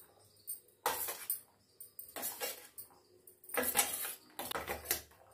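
A steel spoon scraping and clinking against a stainless-steel plate as chopped ginger and green chillies are pushed off it: a few separate scrapes and clinks, about a second apart, with a longer scraping run near the end.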